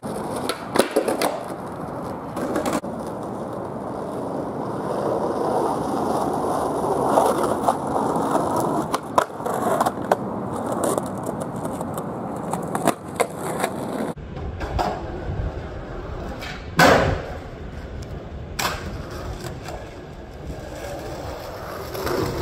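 Skateboard wheels rolling over asphalt and concrete, with sharp clacks of the board hitting the ground every few seconds. About two-thirds of the way in, the rolling turns to a deeper rumble.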